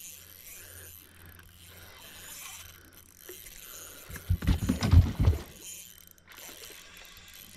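Spinning reel being cranked to bring in a hooked trout, its gears giving a ratchet-like whir, over a faint steady low hum. About four seconds in comes a burst of louder low thumps and rumble lasting about a second.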